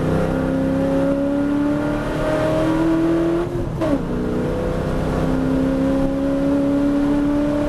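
V8 race car engine at full throttle, accelerating hard, heard from inside the cockpit. The engine note climbs steadily, drops sharply with an upshift about halfway through, then climbs again in the next gear.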